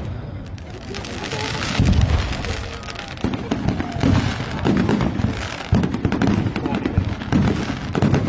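Aerial fireworks shells bursting: a run of deep booms, coming about once a second and closer together in places, with crackling between them.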